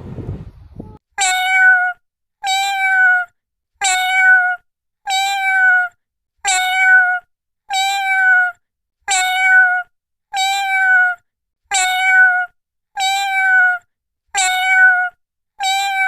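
A cat meowing: one high-pitched meow repeated about twelve times, a little under once a second and a half. Each call is the same short, steady cry, as if a single meow were looped.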